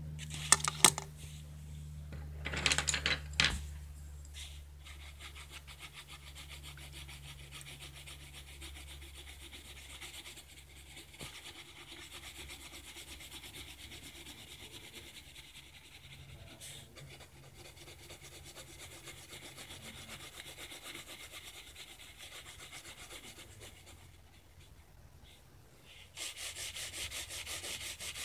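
Pencil scratching on sketchbook paper in quick repeated shading strokes. A few sharp clicks and knocks in the first few seconds are the loudest sounds. The scratching dies down briefly near the end, then resumes louder.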